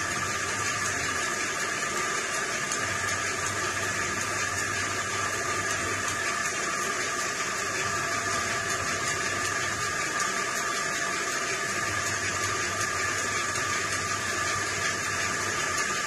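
Steady rushing, water-like noise with a constant hum running under it.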